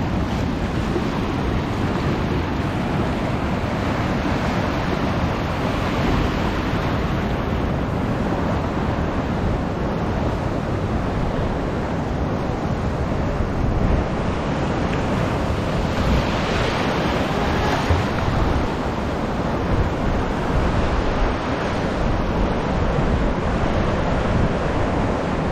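Ocean surf breaking and washing in a continuous rush, with wind rumbling on the microphone.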